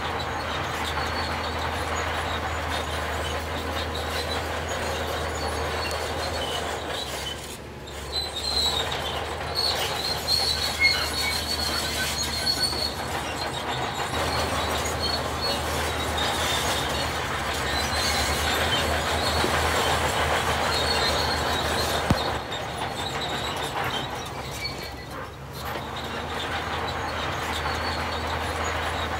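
Heavy construction machinery running steadily, a low engine drone under metallic grinding and clanking. About eight seconds in, a high-pitched metal squeal runs for several seconds.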